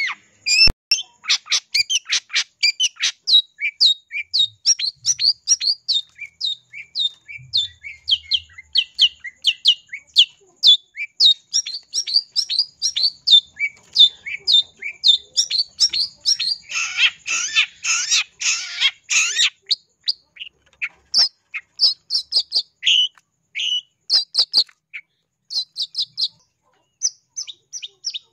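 Long-tailed shrike calling in a long run of short, sharp, high chirps, about three or four a second, breaking into a denser, harsher chatter a little past halfway.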